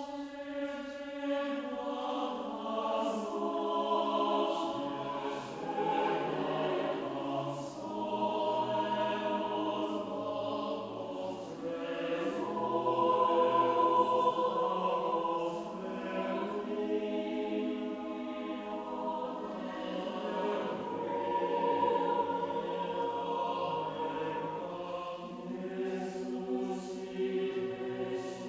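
Mixed choir of men's and women's voices singing a cappella in sustained chords, with crisp sibilant consonants. It swells louder about halfway through, then eases back.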